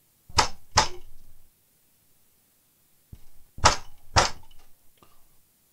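Sharp knocks in two pairs, about a third to half a second apart and close to three seconds between the pairs, each ringing on briefly, with a fainter knock just before the second pair.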